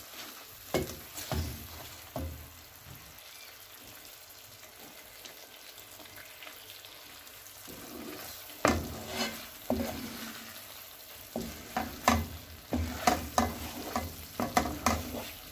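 Wooden spoon stirring thick watermelon halwa in a pan, scraping and knocking against the pan while the ghee-rich mixture sizzles softly. A few strokes come in the first couple of seconds, then the stirring gets quicker and busier from about eight seconds in. The halwa is near its finished stage, coming away from the pan and gathering around the spoon.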